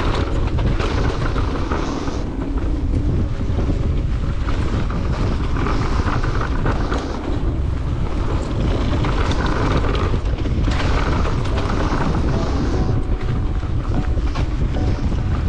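Wind rushing over a chest-mounted camera's microphone as a mountain bike rides down a bike-park trail, with tyre noise and scattered knocks and rattles of the bike over rough ground.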